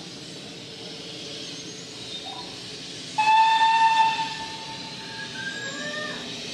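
Steam locomotive letting steam hiss steadily from its cylinder drain cocks. About three seconds in, a single loud blast of its steam whistle sounds for about a second, then fades.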